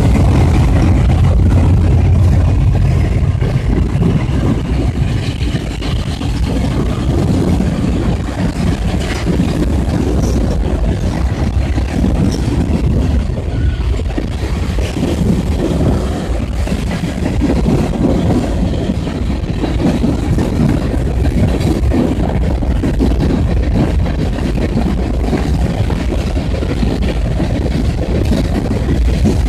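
Freight train passing close by. The diesel locomotive engine runs loudly for the first few seconds as it goes by, then covered hopper cars roll past over the rails with a steady, continuous rumble.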